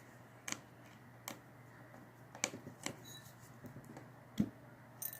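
Faint, irregular clicks and taps of small tools and plastic parts as a smartphone is being taken apart, with one slightly louder knock about four seconds in.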